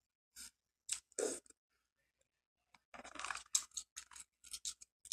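Crab legs being cracked and picked apart by hand: a few scattered snaps of shell, then a dense run of crackling and clicking from about three seconds in.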